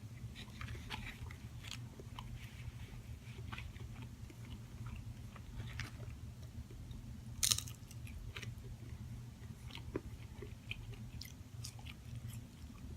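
A person chewing and biting food close to the microphone, with small crunches and wet mouth clicks. One louder crunch comes about seven and a half seconds in.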